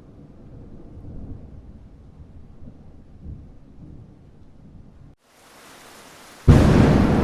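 Low rolling rumble of distant thunder, then a short break about five seconds in. Rain hiss begins, and near the end a sudden loud thunderclap crashes over heavy rain.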